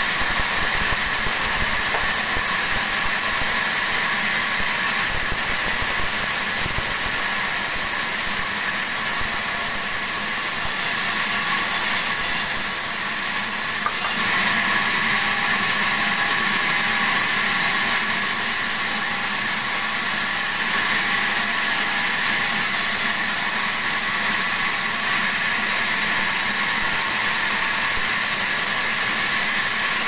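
Sawmill band saw running steadily while ripping timber planks lengthwise: a loud, continuous, mostly high-pitched sound of the blade cutting wood. It eases slightly about halfway through, then carries on as the next cut goes through.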